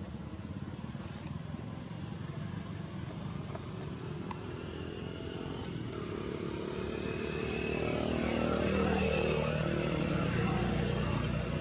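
A motor vehicle's engine running with a steady, pulsing rumble, getting louder from about six seconds in.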